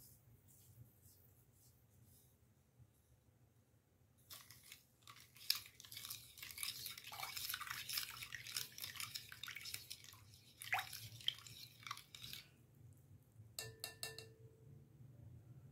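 Whisk beating milk, sugar and yeast in a glass bowl: a dense run of rapid strokes that starts a few seconds in and stops before the end, followed by a short ringing clink against the bowl.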